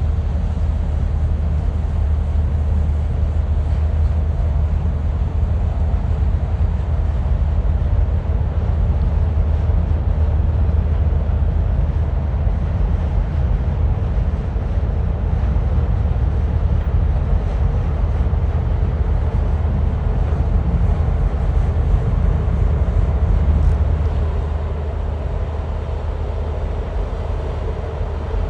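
Low, steady engine rumble of a cargo ship passing on a canal, easing off slightly near the end.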